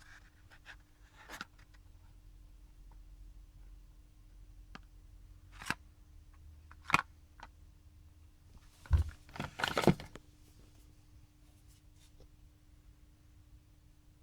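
Small parts being handled on a workbench: a few separate light clicks and taps, then a low thump and a short clatter of clicks about nine to ten seconds in, over a faint steady hum.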